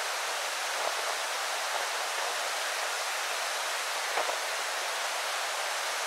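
Steady rush of flowing river water, an even hiss with no low rumble, broken only by a few faint ticks.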